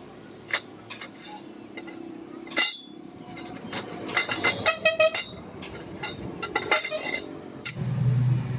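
Metal parts and tools clinking and tapping, several short ringing strikes close together in the middle, as when ceiling fan parts are handled and worked on.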